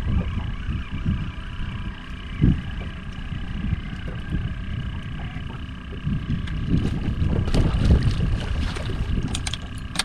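Wind buffeting the microphone in gusts, with a hooked speckled trout splashing at the surface in the last few seconds as it is reeled to the boat.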